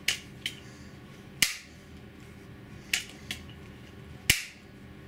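Benjamin HB22 multi-pump pellet pistol being pumped: four sharp clicks about a second and a half apart, one per pump stroke, with two fainter clicks between them.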